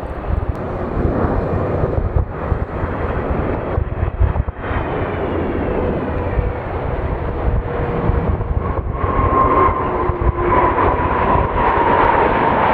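Jet airliner's engines running loud and close in a continuous rushing roar, as it lands or takes off. Late on, a whine rises out of the roar and slowly falls in pitch.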